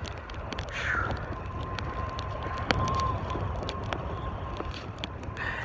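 Gale-force wind rumbling on the microphone, with scattered clicks and a sharp knock a little past halfway. A faint steady high tone runs through most of it.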